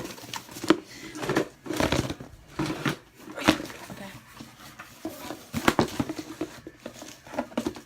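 Slime containers and lids being handled and set down, with irregular clicks, knocks and rustling.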